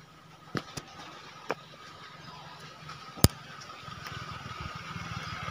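A few sharp clicks, the loudest about three seconds in, over a faint steady hum. A low engine rumble grows louder near the end.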